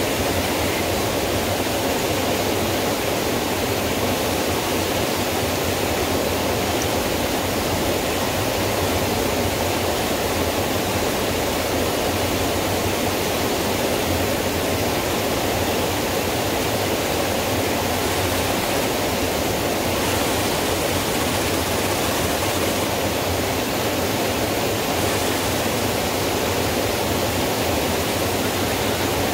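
Steady rushing water: an even hiss with no breaks or changes.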